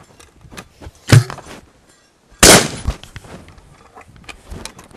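Two loud gunshots about a second and a half apart, the second with a longer ring-out, with a few small clicks around them.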